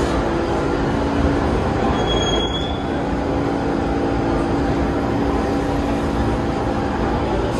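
New York City subway train running along the station platform: a steady noise of wheels and motors, with a brief high wheel squeal a couple of seconds in.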